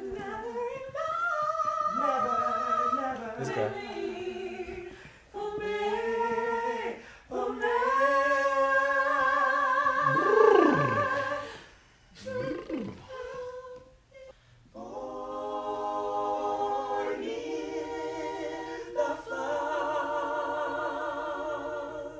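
A small choir singing a cappella in close harmony: held chords with vibrato, sung in phrases separated by short pauses, with a few voices sliding down in pitch around the middle.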